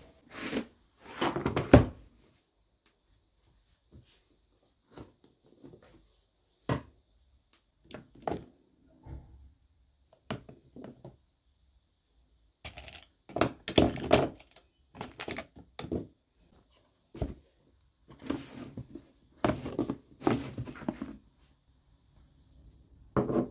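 Things being handled on a desk: a cardboard box's lid and small glass nail polish bottles being taken out and set down, in irregular knocks, thunks and clatters with quiet gaps between. The loudest knock comes about two seconds in.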